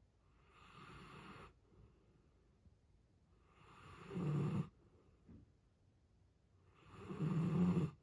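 Alaskan malamute snoring in its sleep: three snores about three seconds apart, each louder than the one before, the last two with a deep rumble under the rasp.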